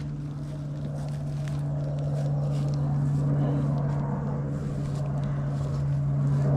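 A steady low hum, with faint scattered clicks and rustling over it.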